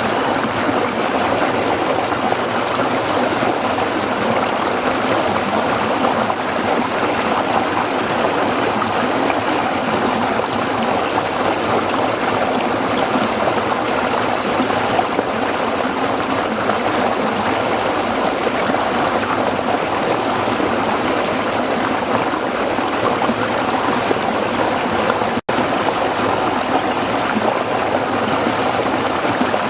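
Waterfall: falling water rushing in a steady, dense hiss, briefly cut to silence for a split second near the end.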